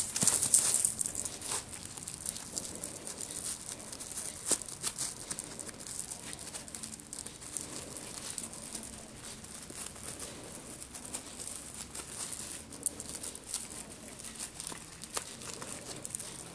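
Silver metallic ribbon crinkling and rustling as it is handled and tied into a small bow by hand, in irregular crackles that are busiest about the first second.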